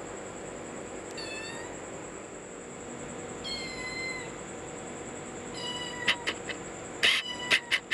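Kitten meowing: three short, high-pitched meows about two seconds apart. About six seconds in, a rapid run of sharp clicks starts and gets louder toward the end.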